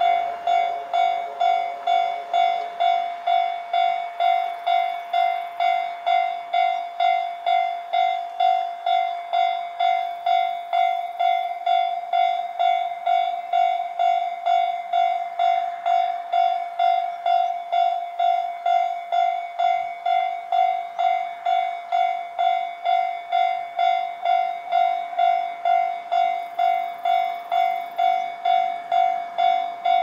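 Japanese railway level-crossing warning bell ringing steadily, a ringing tone repeating a little under twice a second, while the crossing closes for an approaching train.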